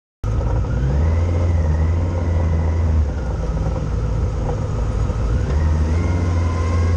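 Vehicle driving in city traffic, heard from on board over steady road and wind rumble. The engine note rises and holds as it accelerates, about a second in and again near the end.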